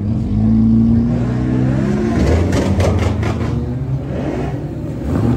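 Ford Mustang exhausts as cars pull away: an engine revs, its pitch rising as it accelerates past, then more revving with a run of sharp pops about two seconds in.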